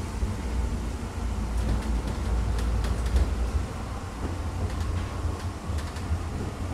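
Tram 2000 tram running, a steady low rumble, with a few faint clicks about two to three seconds in.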